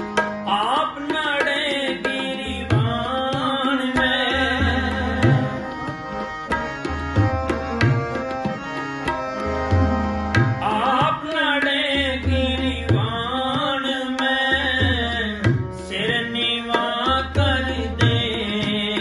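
Sikh shabad kirtan: male voices singing Gurbani to harmonium, with tabla keeping time, its bass drum giving regular deep strokes under the melody.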